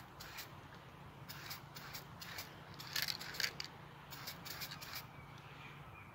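Irregular light clicks and scrapes of hands handling aerosol spray-paint cans and their plastic spray tips, with the loudest clicks about three seconds in. A faint steady low hum sits underneath.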